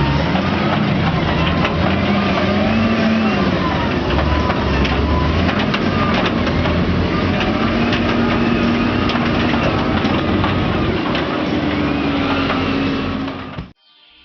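A JCB backhoe loader's diesel engine working under load, its pitch rising and falling as it revs, with scattered sharp knocks. The sound cuts off suddenly near the end.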